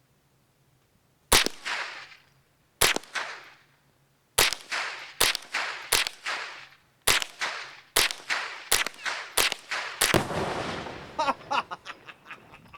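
About ten gunshots fired at an exploding target downrange. The first two shots come about a second and a half apart, and the rest follow in a quicker string. The last shot trails off in a longer rumble.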